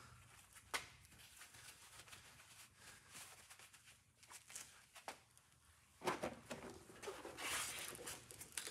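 Tools and metal parts being handled at a workbench: a few scattered light clicks, then from about six seconds in a stretch of rustling, scraping and clattering.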